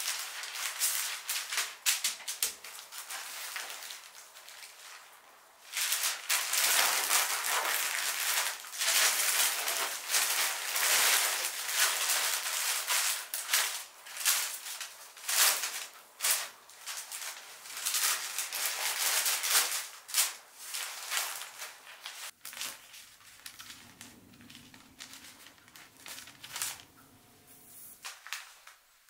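Crinkly flower wrapping being handled, rustling and crackling in irregular bursts with short pauses. A faint low hum comes in near the end.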